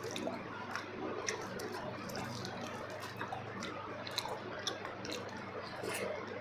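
Close-miked chewing of soft, wet food, with squishy mouth sounds and scattered small clicks.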